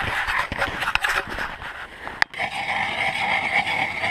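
Crunching and handling noise in snow, then about two seconds in a hand-cranked ice auger grinding steadily into the ice, its blades shaving through with a continuous scraping whine.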